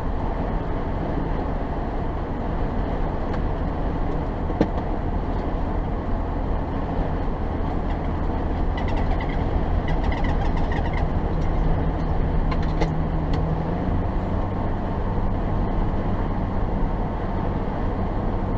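Car driving at highway speed, heard from inside the cabin: a steady drone of tyre and engine noise, with the engine's hum stepping up slightly in pitch about two-thirds of the way through.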